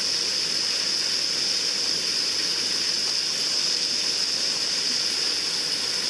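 Steady, unbroken hiss of water running and splashing into a koi pond.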